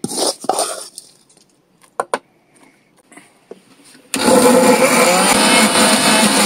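Electric mixer grinder switched on about four seconds in and running steadily, grinding tomato, dried chillies, shallots and spices into a masala. Before it, a metal spoon scrapes and taps in a metal bowl.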